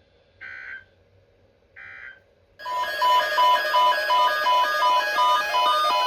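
Two short bursts of EAS end-of-message data tones, then, about two and a half seconds in, a loud electronic alert tone starts: rapid beeps stepping between several pitches, several a second.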